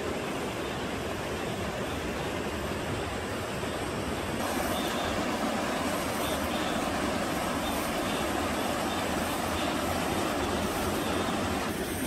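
Steady rushing of a rocky mountain stream, growing a little louder and fuller about four seconds in.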